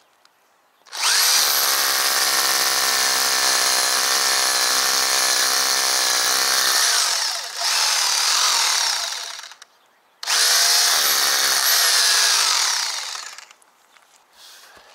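Corded DeWalt hammer drill, set to hammer mode, boring into a brick chimney: one long run of about eight seconds that dips briefly and winds down, then after a short pause a second run of about three seconds.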